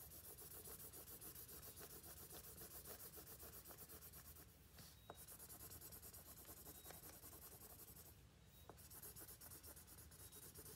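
Felt-tip marker scribbling on paper, faint quick back-and-forth strokes, about four a second, as a patch is coloured in, with two brief pauses.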